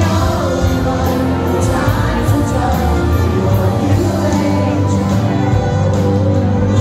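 A large live band playing a pop-rock song with a lead singer over electric guitars and a steady beat, heard from among the audience in a concert hall.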